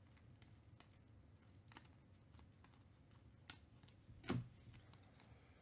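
A stack of glossy football trading cards being flipped through by hand: faint scattered clicks and slides of card edges, with one louder snap about four seconds in.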